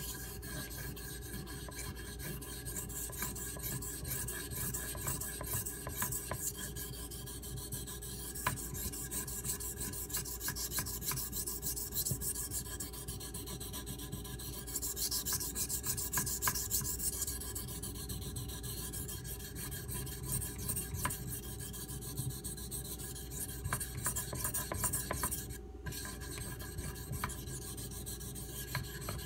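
CPM 3V steel knife blade being stroked back and forth on a Shapton Pro whetstone, a steady scraping rasp with a short break near the end.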